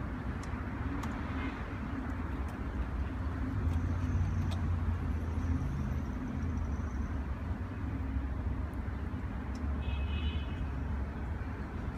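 A steady low mechanical rumble in the background, with a few faint clicks and scrapes as a screw is turned in by hand with a large flathead screwdriver.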